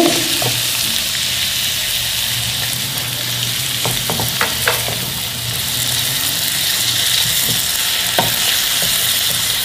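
Chicken pieces with onion and green chillies sizzling steadily in a hot nonstick frying pan after a splash of water, stirred with a silicone spatula, with a few soft knocks and scrapes of the spatula around the middle and one near the end.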